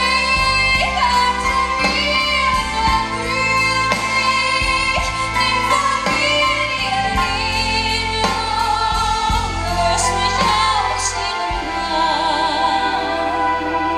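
A woman singing a slow, tender song live into a microphone, her held notes wavering with vibrato, backed by a live band with drums and bass.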